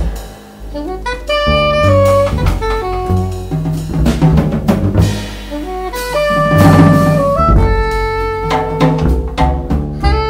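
Jazz trio playing: a soprano saxophone melody of held notes over walking double bass and a drum kit with cymbals.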